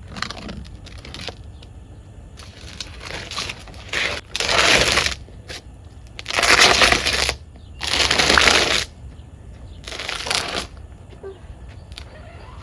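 A series of rough crunching, scraping noises, about five bursts each lasting up to a second, the loudest three in the middle of the stretch.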